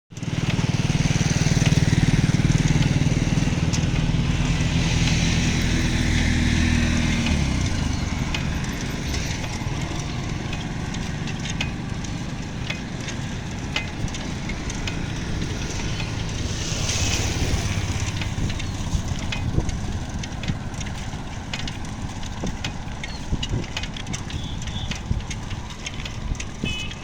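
An engine running with a steady low hum, which stops about seven seconds in. After that comes a noisy background with many small clicks and crackles.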